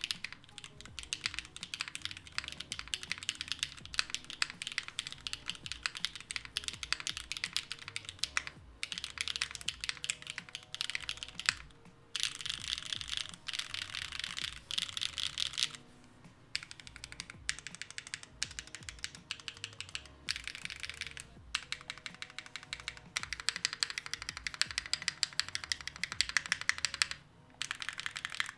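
Kokahu gasket-mount custom mechanical keyboard with Gateron Onyx linear switches on a carbon fiber plate, typed on fast and continuously, with a few brief pauses.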